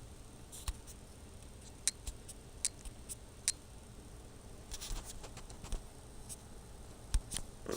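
Light, scattered clicks and taps of small objects being handled, with a brief rustle about five seconds in.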